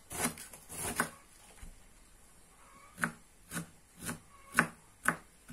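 Kitchen knife shredding young cabbage on a wooden cutting board: a couple of slicing strokes in the first second, then, after a short pause, five sharp knocks of the blade on the board about two a second.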